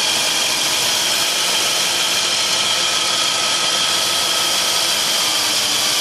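BMW M62 V8 engine idling as brake cleaner is sprayed at the throttle body gasket, with a steady, dense running noise. The idle changes as the cleaner is drawn in, which marks the throttle body gasket as leaking vacuum.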